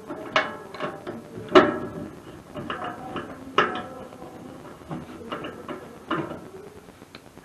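Irregular knocks and clanks with short ringing tails, a few sharper ones among softer handling noises.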